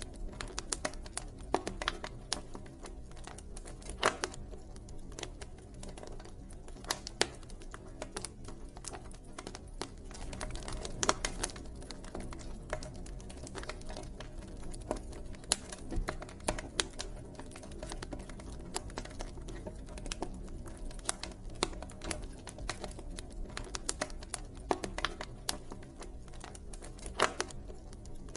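Wood campfire crackling: irregular sharp pops and snaps, some louder than others, over a low steady rumble of the burning fire.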